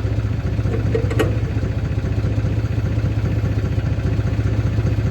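Pickup truck engine idling steadily, with one short click about a second in.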